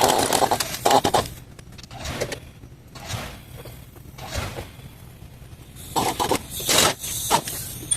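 Metal hand tools and car parts scraping and knocking during engine-bay work, in irregular bursts in the first second and again from about six seconds in, quieter in between.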